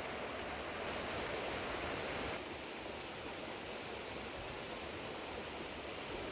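Steady rushing of a mountain valley stream. About two and a half seconds in it becomes a little quieter and duller.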